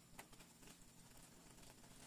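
Near silence, with faint scattered clicks and scrapes of a nylon spatula stirring a thick cream sauce in a nonstick frying pan, the clearest just after the start.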